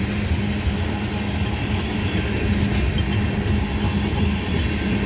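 Freight train tank cars rolling past close by: a steady rumble of steel wheels on rail that holds even, without a break.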